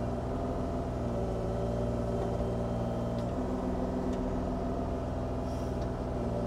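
Bobcat E35i mini excavator's mechanical Kubota diesel engine running steadily while the hydraulics reach the arm out and curl the bucket, with a slight shift in tone about three seconds in.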